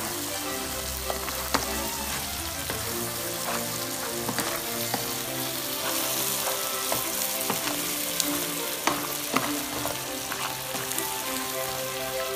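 Crabs and prawns sizzling in a pan of chili-garlic butter sauce while a wooden spatula stirs and tosses them, with scattered clacks of the spatula against the shells and the pan.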